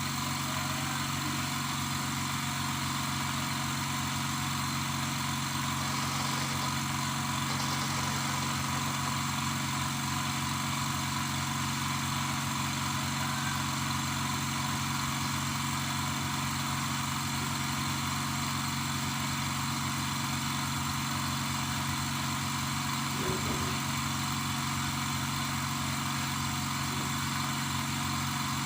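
Izumi OL07-09 air compressor running steadily with an unchanging hum, feeding air down a pipe into a bore well for air-lift pumping.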